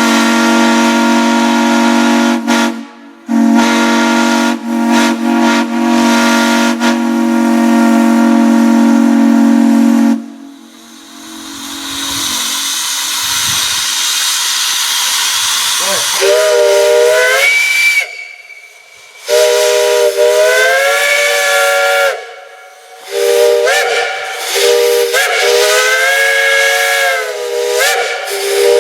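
Steam whistles blown in turn. First a deep chime whistle sounds a steady chord for about ten seconds, with one brief break. Then comes a spell of steam hissing, and after that a higher-pitched chime whistle gives several blasts; each blast slides up in pitch as it opens and its tone bends while held.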